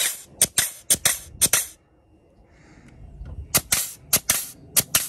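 Hand grease gun being pumped into the zerk fitting of a control arm's SuperFlex joint: a quick run of about half a dozen sharp clicks and pops, a pause of about two seconds, then another such run.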